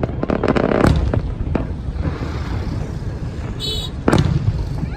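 Fireworks bursting overhead: a cluster of bangs in the first second and single booms later, the loudest about four seconds in, over a steady low rumble. A brief high-pitched tone sounds just before the loudest boom.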